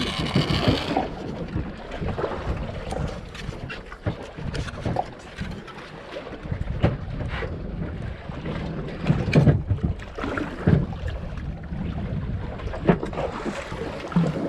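Wind buffeting the microphone over the steady noise of a boat at sea, with scattered knocks from handling the rod and reel while a fish is reeled in.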